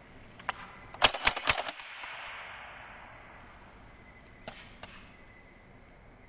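Vz. 61 Skorpion machine pistol, converted to full-auto .22 LR rimfire, firing a single shot, then a short burst of about half a dozen rounds about a second in, with an echo trailing after the burst. Two more single shots come at about four and a half seconds.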